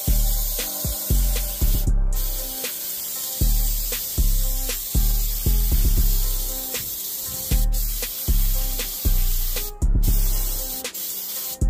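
Gravity-feed paint spray gun hissing steadily as it sprays paint onto a wheel's curb-rash repair, cutting out briefly three times as the trigger is let off. Background music with a heavy bass beat plays over it and is the loudest sound.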